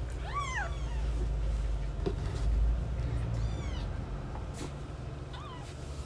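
Young kittens mewing: three short high calls that each rise and then fall in pitch. The first, about half a second in, is the loudest, and the last is faint. A steady low rumble runs beneath them.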